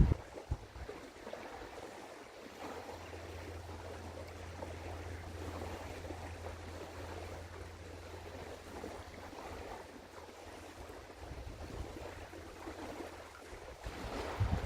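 Wind and water noise on an outdoor microphone, with a low steady drone from a passing ship's engine for several seconds in the middle.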